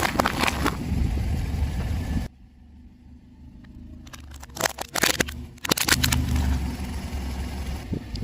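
Car rolling slowly with a low tyre-and-engine rumble. About two seconds in the sound drops off abruptly. Around halfway a quick run of sharp cracks and pops follows as the tyre crushes an object, then the rumble returns.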